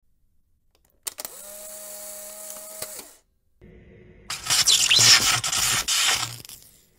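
Intro sound effects of an instant camera: a shutter click about a second in, then a steady motor whir for about two seconds as the photo is ejected. After a short pause, a loud rushing whoosh follows.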